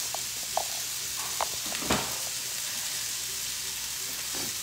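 Food sizzling steadily as it fries in a pan, with a few light clicks from utensils about half a second, one and a half and two seconds in.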